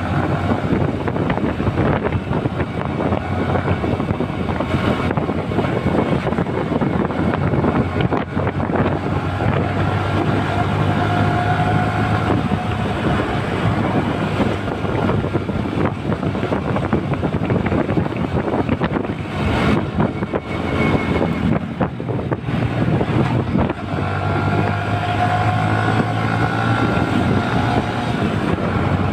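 Motorcycle engine running while riding, with wind noise buffeting the microphone; the engine note rises twice as the bike speeds up, about ten seconds in and again near the end.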